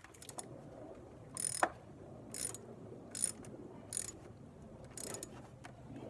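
Socket ratchet wrench clicking in five short bursts, about one a second, as the nut on a car battery terminal clamp is tightened to reconnect the battery.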